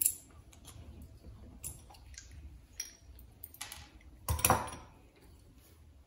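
Small clicks and taps of a carburetor's plastic float, needle valve and hinge pin being handled and fitted on a wooden workbench, with one louder bump about four seconds in.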